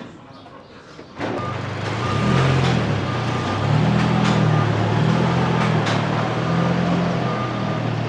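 Isuzu gas delivery truck backing up: its engine running with the pitch rising and falling, and a backup alarm beeping about once a second, starting about a second in.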